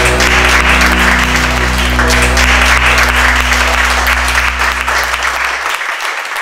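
A room of people applauding, over a held music chord that fades out about five and a half seconds in; the clapping then tapers off.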